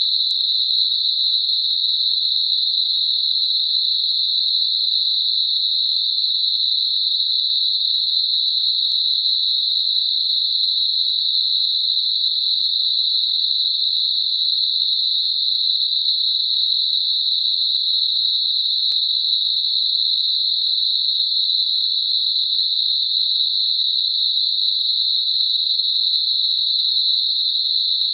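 Computer-generated Gaussian narrow-band noise centred at 4 kHz, a tinnitus masker: a steady, high, even hiss with nothing lower or higher in it, unchanging throughout.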